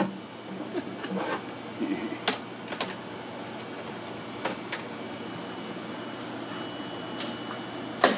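Scattered light clicks and knocks, a second or so apart, over a steady background hum.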